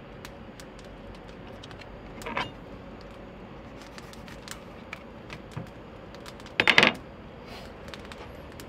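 Cooking utensils and cookware handled on a camp-kitchen counter: scattered light clicks and knocks, a short scrape about two seconds in, and a louder brief clatter of several quick knocks near the seven-second mark, over a steady faint hiss.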